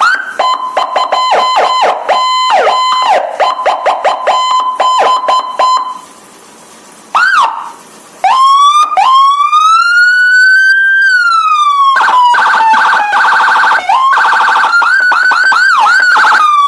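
Barakuda electronic siren cycling through its tones. For the first six seconds it plays a rapidly pulsing high tone, then stops briefly. It gives a short whoop, then a slow wail that rises and falls, then a fast warble, and ends in quick rising-and-falling yelps.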